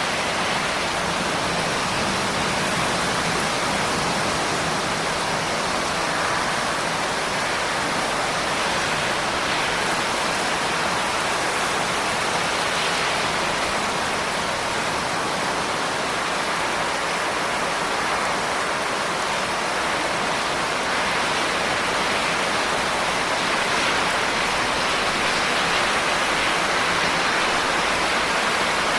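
Steady, heavy rain: a dense, even hiss of falling drops with no distinct patter or thunder.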